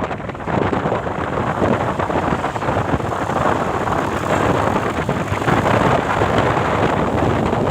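Steady noise of road traffic running past close by, with no horn sounding.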